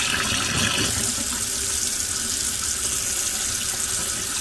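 Kitchen faucet running steadily, its stream splashing over an aluminium RC boat rudder held under it and into a stainless steel sink.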